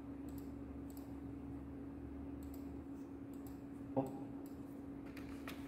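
Scattered faint, light clicks of computer controls being worked, about seven of them, over a steady low hum.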